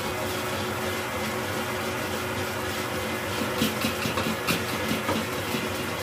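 Electric stand mixer running steadily, its wire whisk whipping egg whites into meringue, with a steady motor hum. From about halfway through, several light sharp clicks sound over it.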